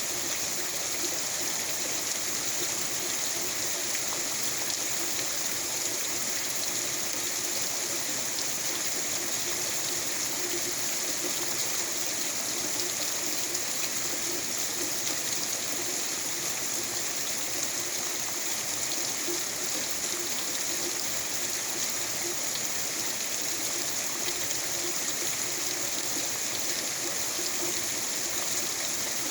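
Heavy rain falling steadily, an even, unbroken rush of water with no letup.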